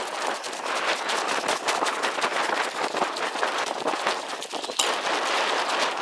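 Footsteps crunching on a gravel and dirt track: a quick, irregular crackle of many small crunches, with one sharper crunch near the end.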